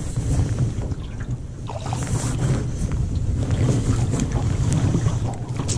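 Wind buffeting the microphone as a steady low rumble, with a few short sharp sounds about two seconds in and near the end.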